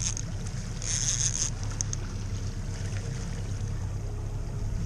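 Boat motor running steadily at low speed, with water and wind noise; two short hissing bursts in the first second and a half.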